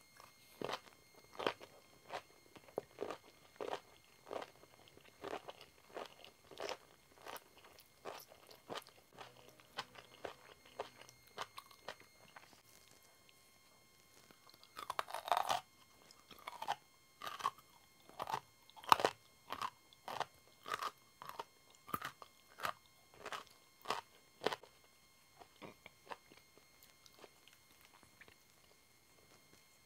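Close-up chewing of crisp vegetables: regular crunching chews about two a second, a louder bite about halfway through, then more crunching chews that stop a few seconds before the end.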